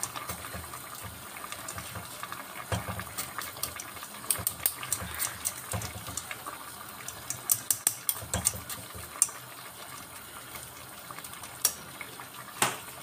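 Broth bubbling at a boil in a stainless pot, with a metal spoon scraping and clinking against a wire mesh strainer as fish paste is pressed through it into the liquid. Sharp clinks come in clusters, then a few single ones near the end.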